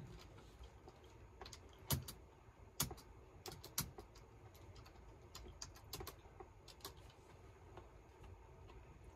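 Faint, irregular clicking of typing on a computer keyboard and clicking a mouse, with a few louder clicks about two to four seconds in.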